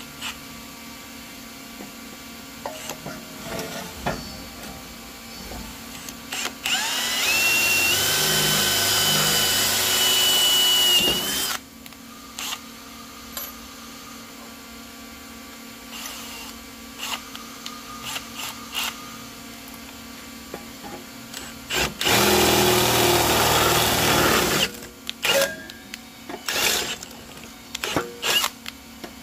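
Cordless drill boring a hole through an aluminum tube wall in two runs: first a pilot hole with a small bit for about five seconds, then the hole opened up with a bigger bit for about three seconds. Each run starts with a rising motor whine that then holds steady. Scattered clicks and knocks come between the runs.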